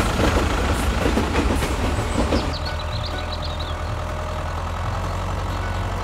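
A rattling clatter that stops about two and a half seconds in, leaving a tractor engine idling with a steady low rumble. A few short high chirps sound briefly near the middle.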